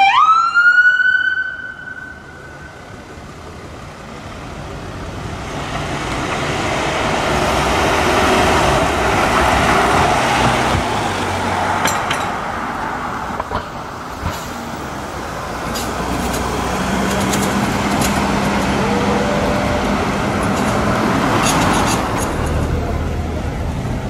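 A police van's siren sweeps down and back up, then fades out within the first two seconds. Passing road traffic then swells and ebbs, with a steady low hum and a short rising whine near the end, and a few light clinks.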